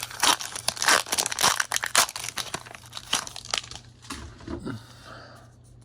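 Foil wrapper of a Pokémon card booster pack crinkling and tearing as it is ripped open, busiest in the first three seconds or so, then fainter rustling.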